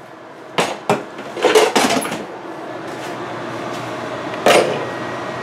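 A metal frying pan and lid being taken out and handled: a run of clanks and knocks in the first two seconds, then one sharp clank about four and a half seconds in as the pan is set down on the stove, over a steady hum.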